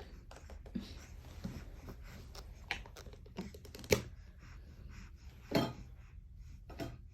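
Scattered light clicks and rustles of things being handled, with a sharper click about four seconds in and a longer rustle a little later, over a low steady room hum.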